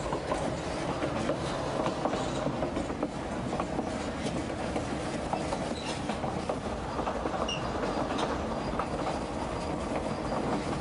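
Narrow-gauge White Pass & Yukon Route passenger train rolling along the track, heard from aboard: a steady rumble of wheels on rail with scattered clicks and rattles.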